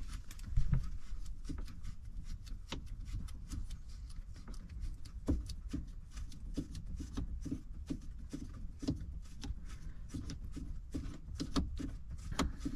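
Irregular small clicks and rubbing from a hand working air-line fittings and hoses loose behind a truck's dash panel.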